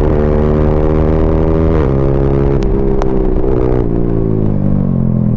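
Yamaha R15M's 155 cc single-cylinder engine running under way through a full-system Yoshimura exhaust. The note holds steady and creeps up, then drops in pitch about two seconds in and again near four seconds.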